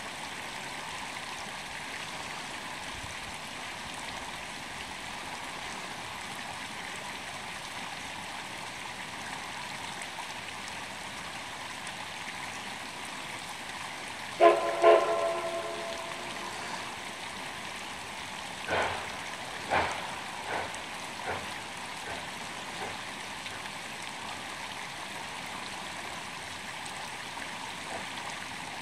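Small mountain creek trickling steadily. About halfway, a distant steam locomotive whistle gives a short double blast. A few sharp knocks follow over the next several seconds.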